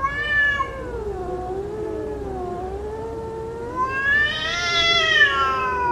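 Cats yowling in a fight standoff: long, drawn-out, wavering caterwauls that glide up and down in pitch, with overlapping calls. The yowling swells higher and louder about four seconds in. This is the threat yowling of cats squaring off to fight.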